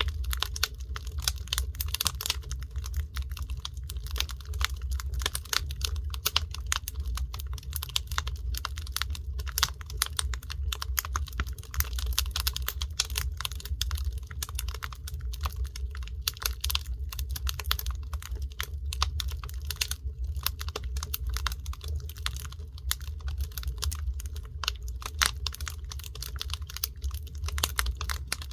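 Burning firewood crackling, with dense irregular snaps and pops over a steady low rumble.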